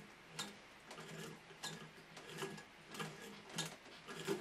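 Antique Wheeler & Wilson D9 sewing machine mechanism turned by hand at the handwheel, running faintly with a light click repeating about every two-thirds of a second. It is freshly oiled and has started to free up.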